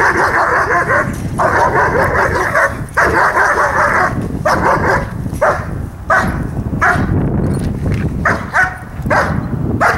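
German Shepherd barking hard and fast in repeated runs. The runs last about a second each at first, then become shorter, quicker bursts. Wind rumbles on the microphone underneath.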